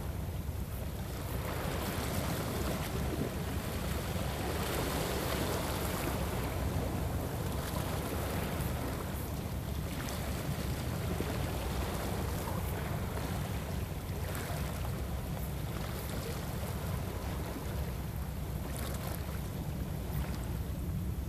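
Sea water washing against shoreline rocks in slow swells, with steady low wind noise on the microphone.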